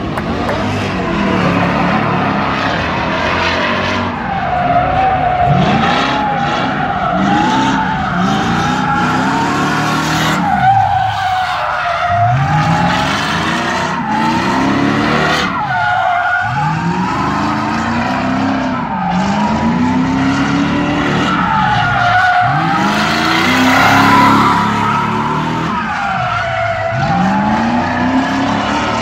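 Drift car's engine revving hard over and over, its pitch climbing and falling back about every two seconds, while its tyres squeal in a long wavering screech as it slides.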